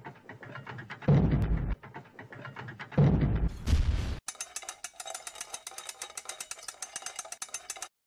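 Intro sound effects: two deep booming hits, each falling in pitch, about two seconds apart, then a fast even ticking, about ten ticks a second, for nearly four seconds that cuts off suddenly.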